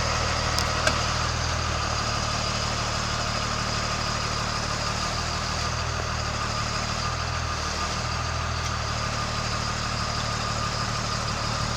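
Caterpillar 120H VHP motor grader's diesel engine running steadily at idle, with a couple of faint clicks about a second in.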